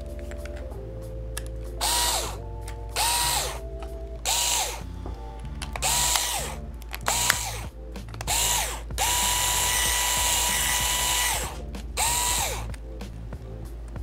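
Cordless electric screwdriver backing out small laptop motherboard screws in short runs. The motor whines up to a steady pitch and winds down each time: seven brief runs and one longer run of about two and a half seconds, starting about nine seconds in. Faint background music plays underneath.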